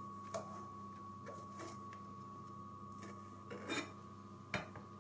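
Knife chopping cooked chicken into small pieces on a cutting board: a few scattered knocks, a quick cluster about three-quarters of the way through and a sharp one near the end. A steady hum runs underneath.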